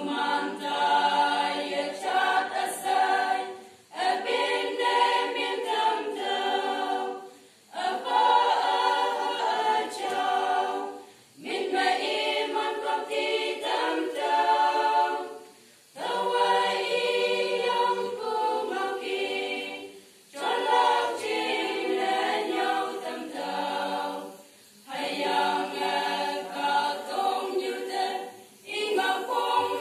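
Women's choir singing unaccompanied, in phrases of about four seconds with a short breath between each.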